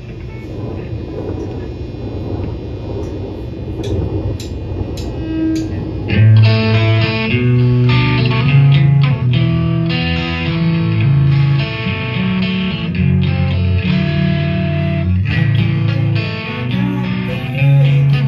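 Live rock band with electric guitar, bass guitar and drums starting a song. A swelling guitar and cymbal wash builds for about six seconds with a few faint ticks, then the full band comes in loud.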